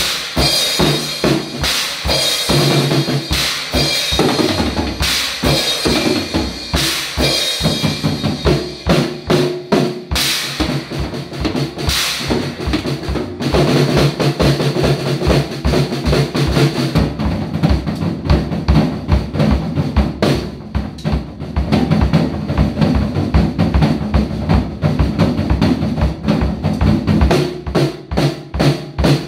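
Acoustic drum kit played in a steady, busy rock beat, with bass drum, snare and crash cymbals. It plays over recorded music with held pitched notes underneath.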